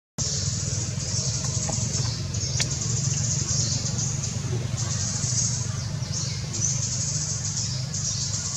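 Outdoor forest ambience: a steady low rumble under a high insect buzz that swells and fades in stretches of a second or two.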